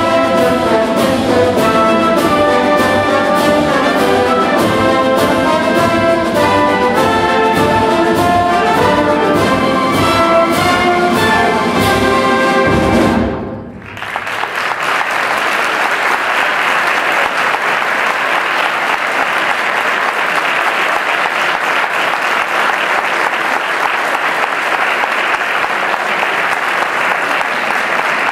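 Wind band of brass and percussion playing the closing bars of a pasodoble with a steady beat, ending on a final chord about thirteen seconds in. Audience applause follows and keeps up to the end.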